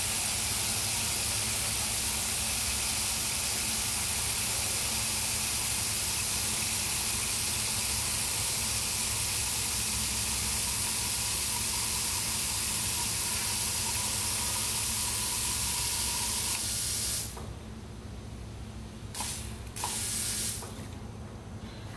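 Eight decapped LS fuel injectors held wide open on a makeshift flow bench, spraying fuel into cups with a steady hiss over the hum of an electric fuel pump during an injector flow test. It all cuts off suddenly about 17 seconds in when the pump switch is released.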